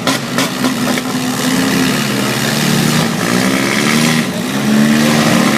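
Several four-cylinder demolition derby cars running at once, their engines revving up and down with overlapping pitches that rise and fall. A few sharp knocks come right at the start.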